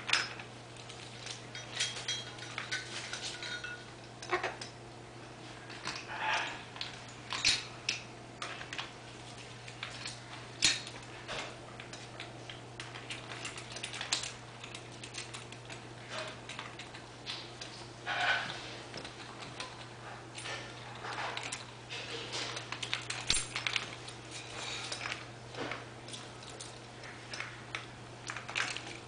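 Pet macaw playing with toys on a PVC play gym: irregular clinks and jangles of metal keys and toy clips, with knocks on the plastic perches, over a steady low hum.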